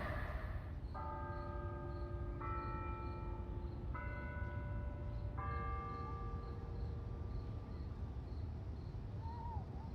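Bells ringing, a new chord struck about every one and a half seconds and each ringing on, over a low rumble as the passing train's noise dies away in the first second.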